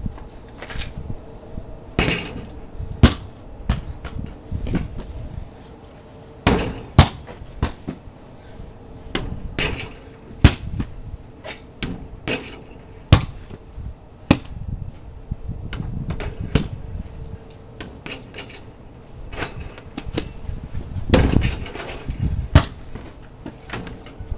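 A basketball being shot at an outdoor hoop: repeated sharp bangs of the ball striking the backboard, rim and ground, irregular and a second or two apart, with the hoop's metal chain net clinking.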